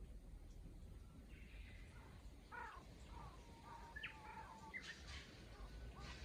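Faint birdsong: Japanese bush warblers singing, with a long held whistle and several sharp rising notes, over a steady low rumble.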